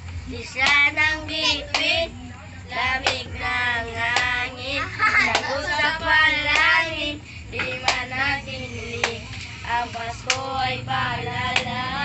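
Children singing a Christmas carol, with sharp hand claps scattered through the singing.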